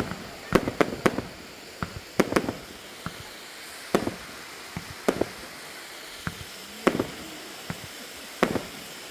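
Fireworks display: aerial shells bursting overhead in a string of sharp, irregular bangs, some coming in quick pairs and others a second or more apart.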